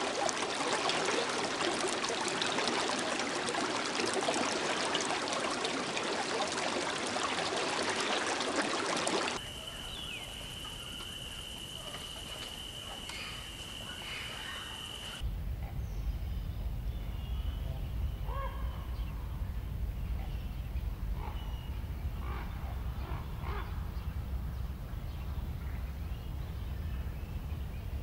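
Nature sound in three abruptly cut sections. First a steady hiss of running water. About nine seconds in it drops to a quieter part with a steady high tone and a few bird chirps, and from about fifteen seconds a low steady rumble with scattered faint bird chirps.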